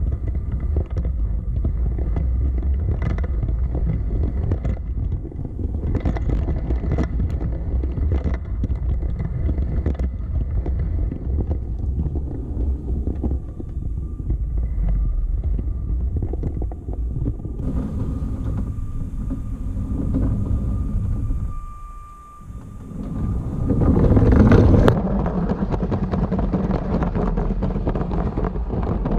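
Lego City train running on plastic track: a steady low rumble with a faint motor whine and irregular clicks from the wheels. It dips briefly about three quarters of the way through, then swells to its loudest.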